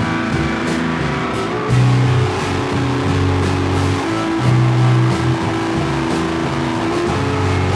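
A rock band playing live and loud: guitar and drums, with held low notes that change every second or so and cymbal and drum hits throughout.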